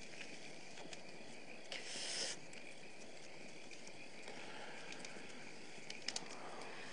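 Crickets chirping steadily at night, with scattered small crackles of a campfire. About two seconds in comes a short breathy hiss of a drag on a joint.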